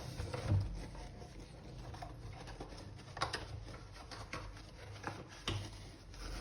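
Scattered light clicks, taps and rustles of hands handling the vacuum cleaner's plastic housing and motor wiring, with a few sharper knocks about half a second, three seconds and five and a half seconds in.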